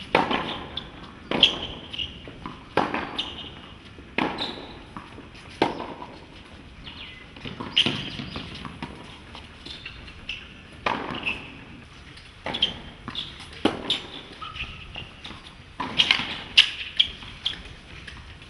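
Tennis rally: a ball struck back and forth by rackets. The sharp hits come about every one and a half seconds, with the ball's bounces between them.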